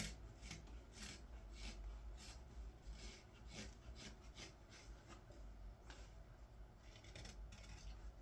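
Knife blade paring shavings from a green-wood ladle: short, faint slicing strokes, about two a second, with a brief pause in the middle.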